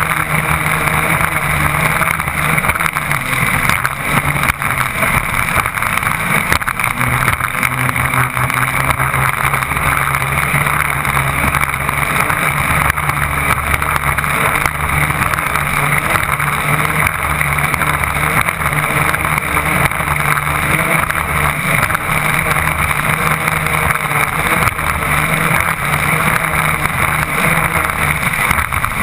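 Twin Yanmar BY 260 hp diesel engines of a Stirling 34 offshore race boat running flat out, heard from on board, over a steady rush of water and wind. The engine note holds steady, with small shifts in pitch now and then.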